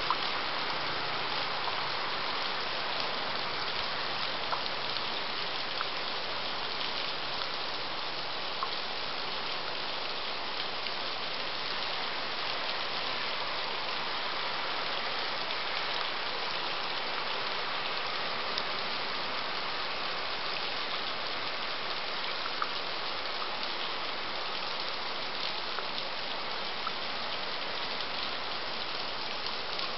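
Heavy rain falling steadily, an even hiss, with now and then a sharper tick of a single drop striking close by.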